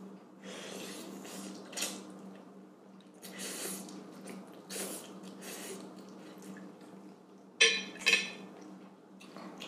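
A person slurping and chewing a mouthful of spicy instant noodles, a run of short wet sucking sounds. Near the end come two sharp, louder sounds close together.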